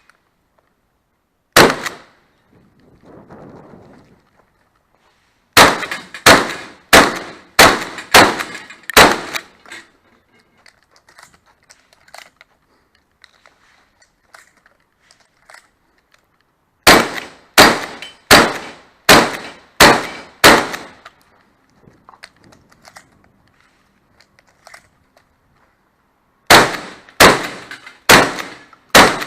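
Shotgun fired in rapid strings during a timed match stage: a single shot about two seconds in, then two strings of six shots, roughly one every two-thirds of a second, and a third string starting near the end. Faint clicks and clatter fill the pauses between strings.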